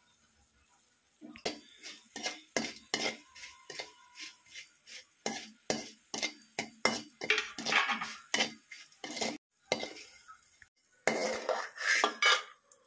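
A steel spoon scraping and clinking against a metal kadai while stirring fried dried prawns. The rapid clinks and scrapes start about a second in and come thickest near the end.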